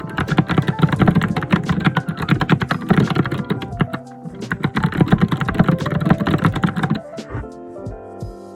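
Fast, vigorous typing on a computer keyboard, a dense run of clacking keystrokes that stops abruptly about seven seconds in. Background music plays underneath and carries on alone after the typing stops.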